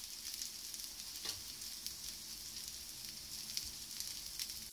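Sweet potato pancake batter sizzling as it fries in a hot pan: a steady frying hiss with a few sharp crackles.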